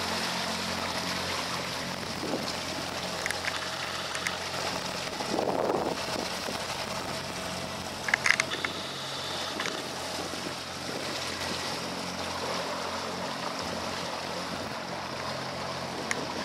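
Suzuki 80 HP four-stroke outboard idling with a steady low hum, under wind and water noise. A brief cluster of light knocks about eight seconds in.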